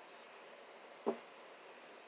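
A single short knock about a second in, with a brief ring, as a cast iron bacon press with a wooden handle is set down on a table, over a faint steady hiss.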